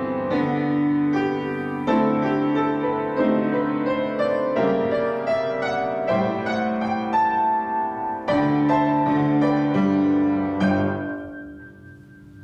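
Keyboard instrument, piano-like, playing slow music of held chords that change about once a second, ending on a final chord that dies away near the end.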